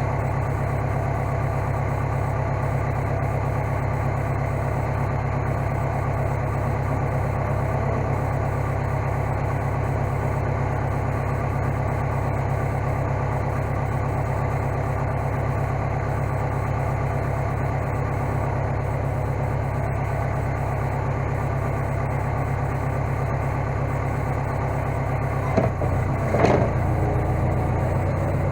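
Case skid steer's engine running steadily at a constant speed, with a brief clatter of knocks about 26 seconds in.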